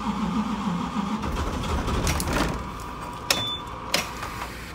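A nearby diesel engine running, which drops away about a second in, followed by a low rumble and then two sharp clicks about a second apart near the end.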